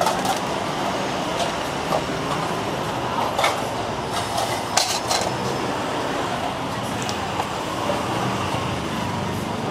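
Steady street traffic with a motor vehicle engine running close by, and a couple of short sharp knocks from work at a metal cooking griddle, about three and a half and five seconds in.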